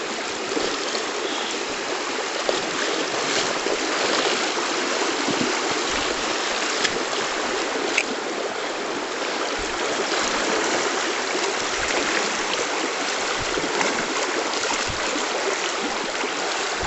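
River water rushing steadily, an even hiss of flowing water, with a few faint low thumps.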